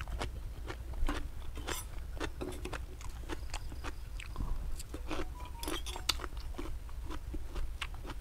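A person chewing crisp raw shrimp and raw vegetables close to the microphone: irregular wet crunches and mouth clicks, loudest about a second in and again around six seconds in.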